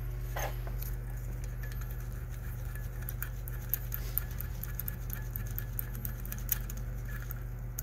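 Light, irregular clicks and taps of metal parts being handled at the pump shaft, as the temporary bearing holder is worked off, over a steady low hum.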